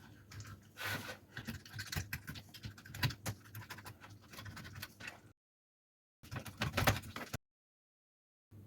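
Knife cutting through a pollock: a run of irregular scraping and crunching clicks, broken twice by short gaps of dead silence where the recording is cut.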